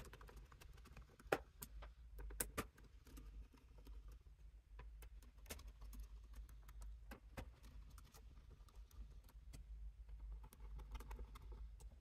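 Faint scattered clicks and ticks of a small screwdriver turning the screws of a laptop's metal bottom cover, over a steady low hum.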